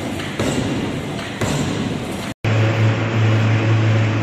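Heavy forging hammer striking a red-hot steel bar, with knocks about once a second. After a cut, a large industrial lathe turns a big steel roll with a steady low hum.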